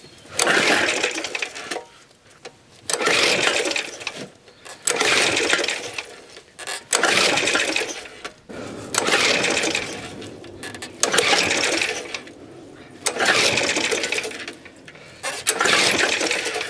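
A Suffolk Super Punch mower's small petrol engine being pull-started: about eight hard pulls on the recoil starter cord, roughly one every two seconds, each spinning the engine over briefly without it catching. The engine won't fire, which the owner puts down to a lack of spark at the points.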